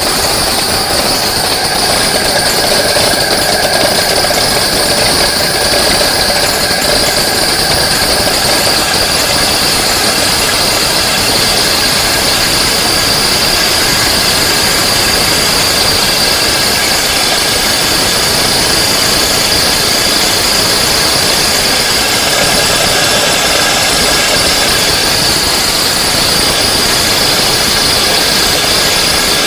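Maksindo AGR-GRP 150 electric grain mill running steadily, grinding dry grain into coarse meal. It makes a loud, even grinding noise with a steady high whine.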